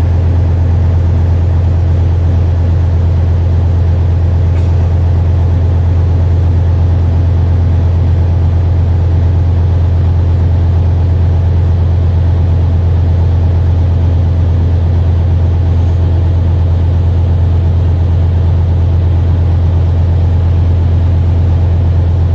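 Boat engine running steadily with a deep, even drone that does not change.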